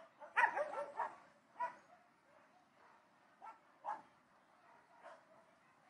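Dogs barking in the distance: a quick run of barks about half a second in, then single barks spaced a second or two apart.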